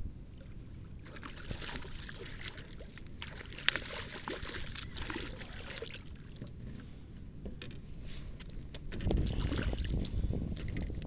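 Water splashing and sloshing as a hooked redfish thrashes at the surface beside the boat, with crackly splashes and one sharper splash a few seconds in. About nine seconds in, a heavier low rumble takes over.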